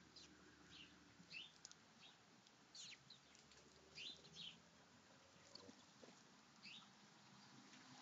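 House sparrows chirping faintly: about ten short cheeps scattered unevenly, each a quick downward sweep in pitch.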